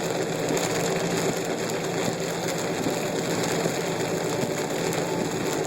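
Steady noise inside a car driving through a heavy rainstorm: rain on the car and the engine and tyres running, an even rush with a low hum under it.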